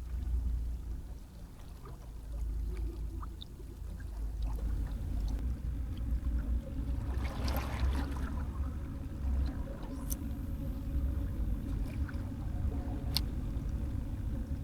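Low, uneven rumble of wind and sea water at the shoreline, with a louder rush of water about seven seconds in and a few sharp clicks later on.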